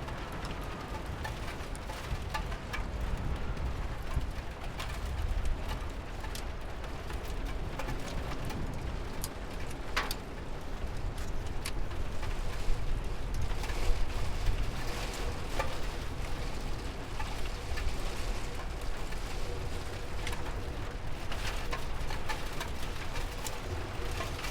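Steady rain, with scattered sharp drips and taps of drops landing near the microphone.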